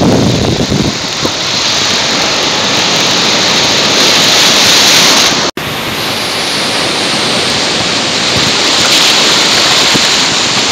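Ocean surf breaking and washing through shallow water: a loud, steady rush of white water. The sound cuts out for an instant about halfway through.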